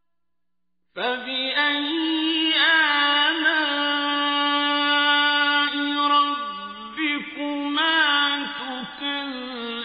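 After about a second of silence, a solo voice chants Quranic recitation in long held notes with ornamented turns of pitch, with short breaks between phrases.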